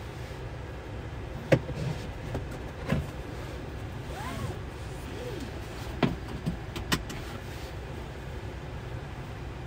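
A pickup truck's cabin: a few sharp clicks and knocks as the driver shifts about and pulls the seatbelt across, over a steady low hum.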